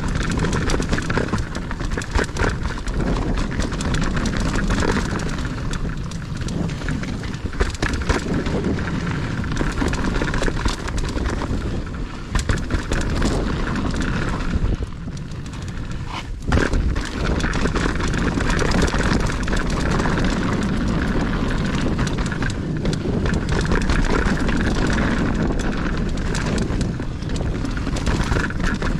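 Mountain bike ridden along a dirt trail: wind rushing over the microphone, tyres on dirt and the bike rattling and knocking over bumps, easing briefly about halfway through before a sharp knock.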